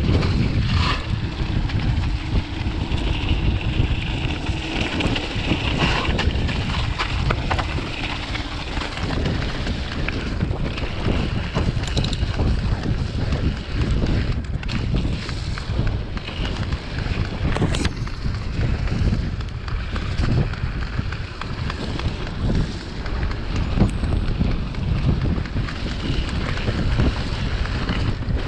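Mountain bike descending a rough dirt trail at speed: wind rushing over the microphone, a steady noise from the tyres on the ground, and frequent sharp knocks and rattles from the bike over roots and rocks.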